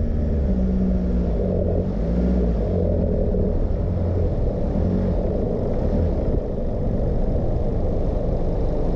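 Four-wheel-drive vehicle driving, with a steady engine and drivetrain rumble whose pitch wavers slightly.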